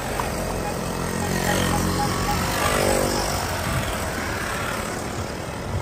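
Small two-stroke engines of VéloSoleX mopeds buzzing as the riders go past one after another, loudest about halfway through as one passes close.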